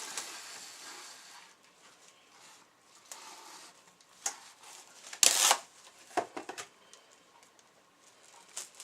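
Plastic wrap rustling and crinkling as it is laid loosely over a pan of shaped bun dough, with one louder crinkle about five seconds in and a few light clicks just after it.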